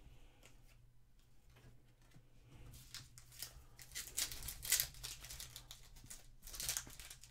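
Trading cards shuffled through by hand with faint ticks, then from about three seconds in a foil card-pack wrapper being torn open and crinkled in a run of sharp crackling rips.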